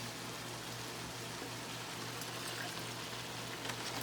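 Soy sauce being poured into a pot of water for a lumpia sauce, a steady liquid pour.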